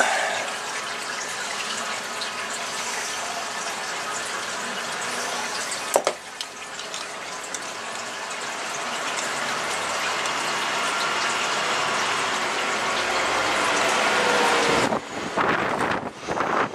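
Steady rushing, hissing noise with a click about six seconds in. It grows slowly louder, then breaks off near the end.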